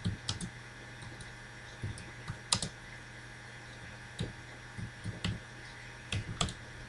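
Computer keyboard keystrokes and clicks, about ten of them scattered irregularly, over a faint steady low hum.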